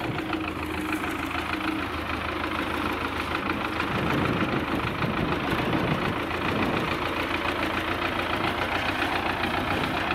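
Engine of a wheeled front-loader tractor running as it drives along with a raised bucket of sand, growing louder about four seconds in as it comes closer.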